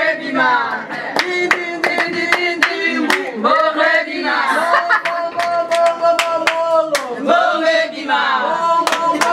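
A group of women singing together while clapping a steady beat, about two claps a second.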